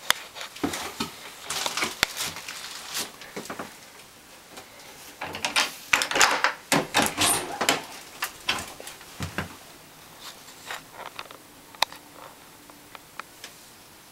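Irregular rustling, clicks and knocks, like things being handled or a door being worked, in two busy spells about a second and a half in and around six seconds in, then only scattered ticks.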